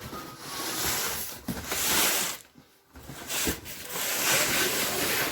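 Cardboard and packing material rustling and scraping as parts are unpacked, in two long swells with a short pause between them and a single knock just after the pause.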